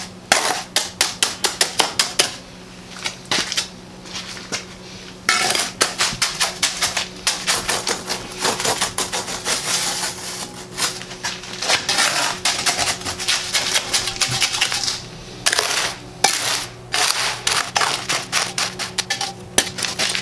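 Steel hand trowel tapping and scraping on wet concrete as a floor patch is worked and smoothed, several quick strokes a second, with a pause of about three seconds near the start and a shorter one later on.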